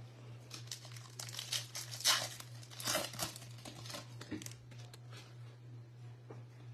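The foil wrapper of a 2024 Bowman baseball card hobby pack being crinkled and torn open by hand: a run of crackling rustles, loudest about two and three seconds in, dying away by four and a half seconds.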